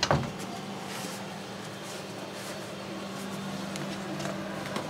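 A sharp knock at the very start, then a steady low electrical hum of a small room, with faint scuffs and clicks as sneakers are pulled off.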